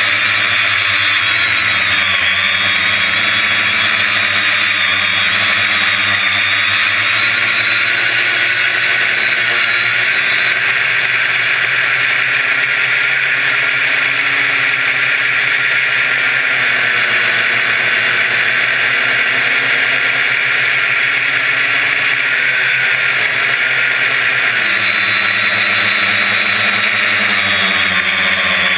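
Quadcopter's electric motors and propellers buzzing loudly right next to the onboard GoPro as it lifts off and climbs, the pitch wavering with throttle changes and shifting noticeably about 25 seconds in.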